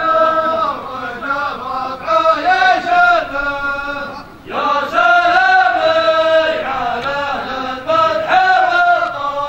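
Chanted singing by a voice in long held, wavering notes, with a short break about four and a half seconds in.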